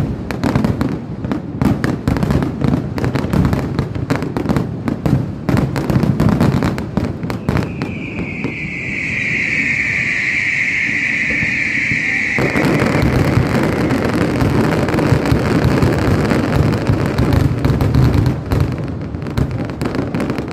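Fireworks finale: a fast barrage of bangs, then a high whistle held for about four seconds, then an abrupt change to a dense, continuous crackling barrage.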